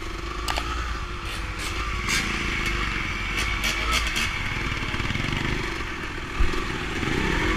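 Dirt bike engine running while riding along, heard from the bike itself, with other motorcycles close by. A few short sharp clicks sound over it in the first few seconds.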